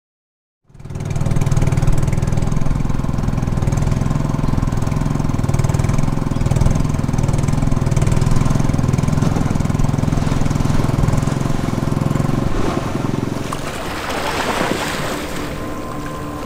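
Small engine of a motorised outrigger fishing boat running steadily under way, heard from on board. About thirteen seconds in the engine drops back and water splashing comes forward.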